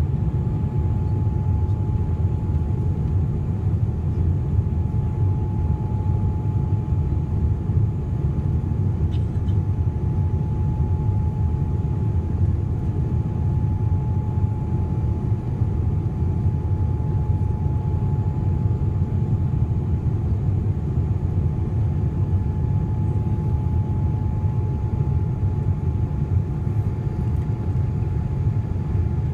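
Steady cabin drone of a Boeing 787 climbing after takeoff: the low rumble of its Rolls-Royce Trent 1000 engines and the airflow, with a steady thin hum running above it.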